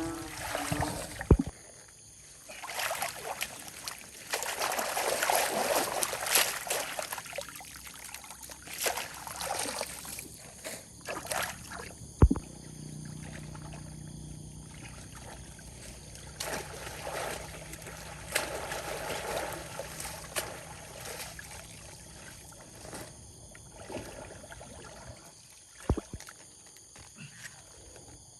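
Water sloshing and splashing in irregular bursts, with three sharp knocks spread through it and a low steady hum for several seconds midway.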